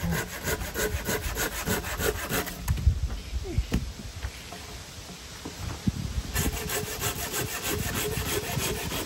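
Silky GomBoy folding hand saw cutting through a dead branch in quick back-and-forth strokes. It pauses for a few seconds in the middle, with a few knocks, then starts sawing again.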